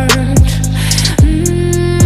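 Background music with a steady beat: deep bass notes that slide down in pitch, held chords above, and regular crisp hi-hat ticks.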